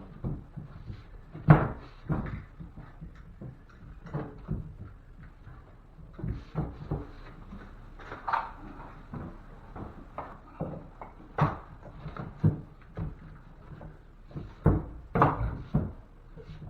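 Irregular knocks, bumps and scrapes of a drywall patch and hand tools being handled while the patch is fitted into a ceiling opening, with sharper knocks about a second and a half in, near the middle and near the end.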